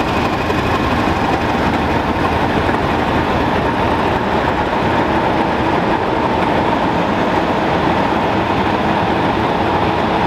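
British Rail Class 31 diesel locomotive's English Electric V12 engine running steadily as it moves its train slowly through the station, with a steady whine over the engine noise.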